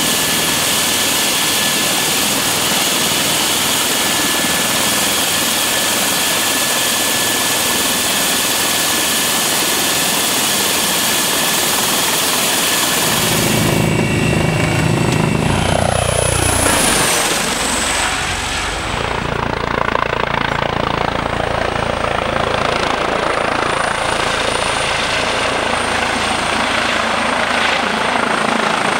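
Eurocopter EC135 helicopter's turbines and main rotor running, a steady rotor noise with a thin high turbine whine over it. About halfway through, the sound changes abruptly to a deeper, heavier rotor sound heard from inside the cabin, with a brief falling sweep in pitch. It then settles back into steady rotor and turbine noise.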